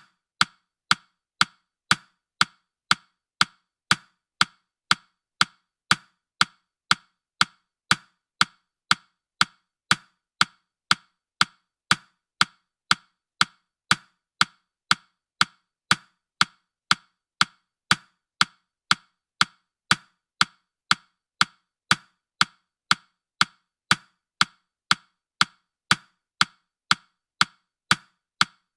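Steady clock-style ticking of a countdown timer, a short sharp tick about twice a second, perfectly even.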